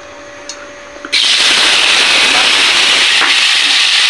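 Chopped tomatoes hitting hot cooking oil in a wok: a loud, steady sizzle starts suddenly about a second in.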